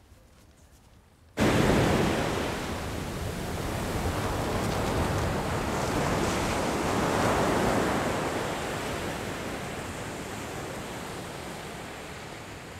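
Surf on a sandy beach: a steady rush of waves breaking and washing up the sand, cutting in abruptly about a second and a half in after a quiet start, swelling in the middle and slowly ebbing.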